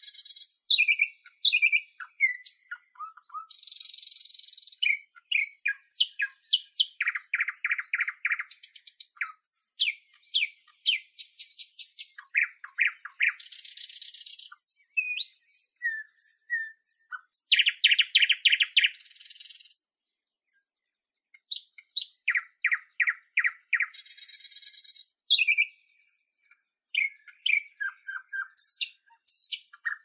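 Nightingale singing a varied song, phrase after phrase: fast series of repeated notes, clear whistles and dry rattling trills, with short pauses between phrases and one longer pause about two-thirds of the way through.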